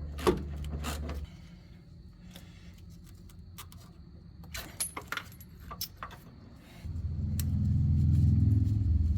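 Metal tools clinking against suspension parts, with a power tool running briefly at the start and again, louder, for the last two seconds or so, undoing the sway bar link fasteners.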